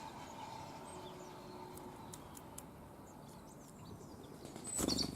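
A few faint, short bird chirps over steady outdoor background noise, with a louder brief burst just before the end.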